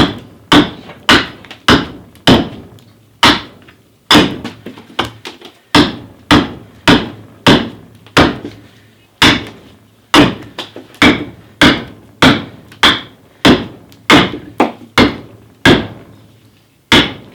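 Carving axe chopping into green sycamore, steady strokes about two a second with a short pause near the end, hewing away the stress-prone centre of the tree.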